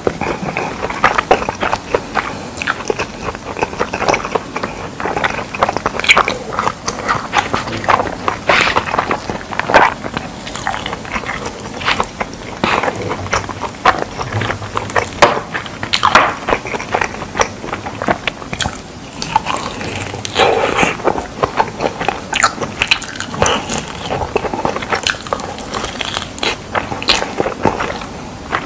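Close-miked eating of sauce-coated fried pork on the bone: biting, chewing and tearing meat off the bone, a constant irregular run of crunchy bites and chews.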